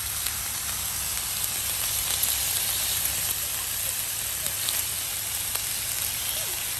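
Sliced pork sizzling on a hot mookata grill pan: a steady frying hiss, with a few light clicks partway through.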